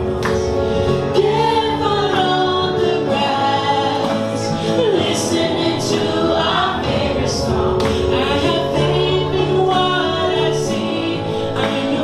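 Music: a solo singer holding long, gliding notes over sustained chords.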